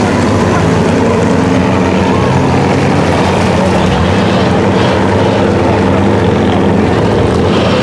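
Off-road vehicle engines running steadily as the vehicles drive through shallow lake water.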